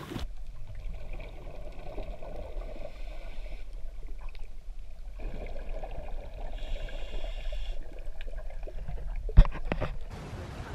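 Muffled underwater sound of a scuba dive along a boat's hull: a low steady rumble with faint bubbling. A single sharp knock comes near the end.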